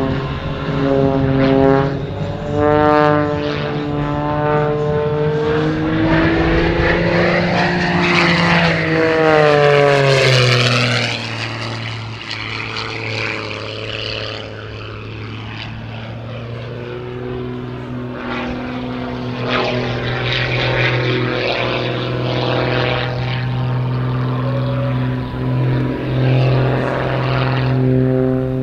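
Edge 540 aerobatic plane's six-cylinder Lycoming engine and propeller running hard through an aerobatic display, the note shifting in pitch with the manoeuvres. About ten seconds in, the plane passes close and the pitch drops sharply as it goes by; the sound then settles lower and quieter before building again as it climbs.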